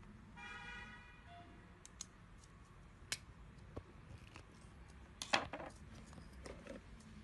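Thin metal shims and the steel screw-feeder rail being handled and fitted together: scattered light metallic clicks and taps, with one louder clack a little past five seconds in.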